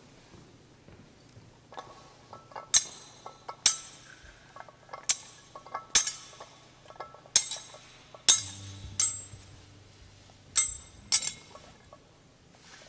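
Metal thurible (censer) clinking as its chains and lid knock against the bowl: sharp, ringing chinks about a second apart, unevenly spaced. A soft, low held musical tone comes in about eight seconds in.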